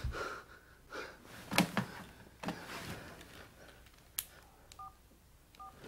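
Phone keypad tones: two short two-note beeps, under a second apart, as a number is dialled near the end, after bedclothes rustle and a click as the phone is picked up and handled.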